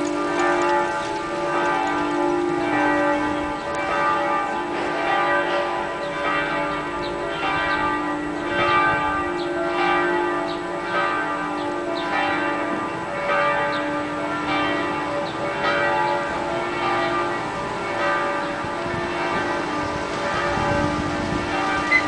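Several church bells ringing together in a continuous peal, with fresh strikes overlapping every second or so.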